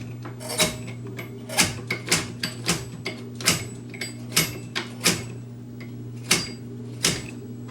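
A 1950 Zenith Porthole tube television set with a steady low mains hum and irregular sharp crackling pops, roughly one or two a second. This is the set developing static interference, later traced to a large resistor that had come unsoldered under the chassis.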